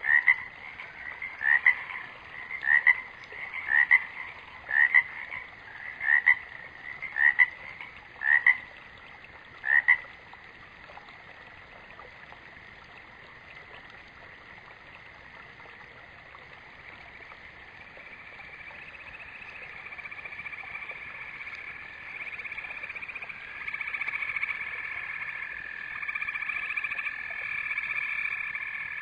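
Animal calls: a short rising call repeats about once a second, nine times, and stops about ten seconds in. From about eighteen seconds a steady trilling chorus builds and grows louder.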